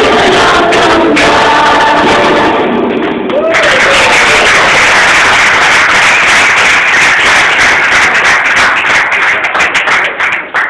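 Children's choir singing with accompanying music, the song ending about three and a half seconds in, followed by several seconds of applause and cheering.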